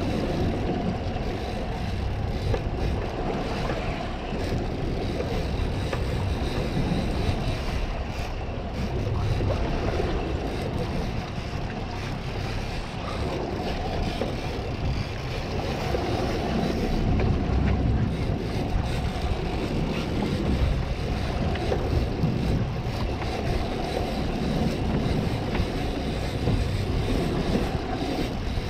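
Wind buffeting the microphone over water sloshing against the boat's hull, a steady rumbling noise.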